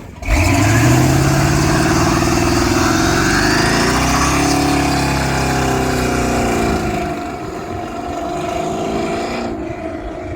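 Engine running loud and steady, cutting in suddenly; its pitch climbs in the first second, wavers, then eases off and gets quieter in the last few seconds.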